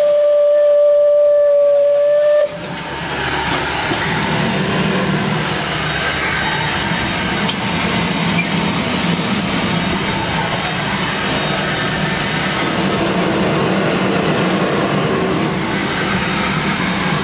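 Steam locomotive whistle sounding one steady note for about two and a half seconds and cutting off suddenly. Then the locomotive running along the track, a steady rumble with hissing steam, heard from inside the cab.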